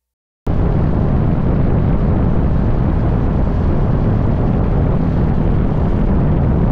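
Wind rushing over the camera microphone on a 2018 Aprilia Tuono V4 RR motorcycle riding at road speed: a loud, steady rumble that cuts in suddenly about half a second in.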